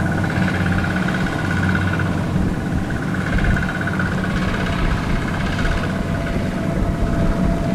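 Single-cylinder diesel engine of a two-wheel walking tractor running steadily as it pulls through rice-field mud, with an even, unchanging pitch.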